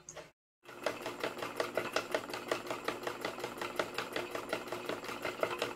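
Small electric motor driving a homemade plastic two-stroke engine model, its moving parts clicking rapidly and evenly, about ten clicks a second, over a steady hum.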